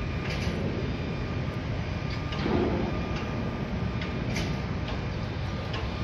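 Construction site ambience: a steady low rumble of machinery with scattered sharp clicks and knocks.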